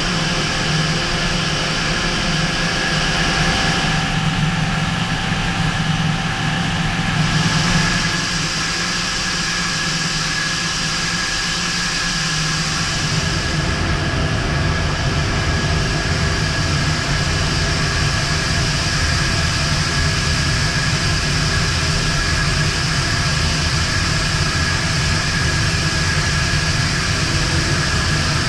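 CNC mill-turn lathe turning a 4140 steel bar with a Kennametal KCP25C CVD-coated carbide insert, at 500 SFM, 0.008 in per revolution and 0.100 in depth of cut. The spindle and cut make a steady machining noise, with a few held tones over a hiss. A deeper rumble comes in about twelve seconds in.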